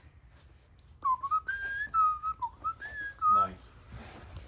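A person whistling a short tune of several notes, lasting about two seconds.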